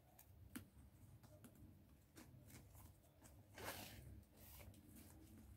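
Near silence with faint handling of a phone armband being fitted on a forearm: a few light clicks and a brief soft rustle of the strap about three and a half seconds in.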